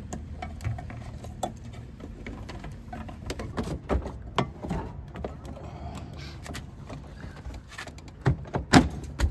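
Plastic clicks and knocks as a car's rear bumper cover is handled and pushed into its clips, with a few louder knocks about a second before the end.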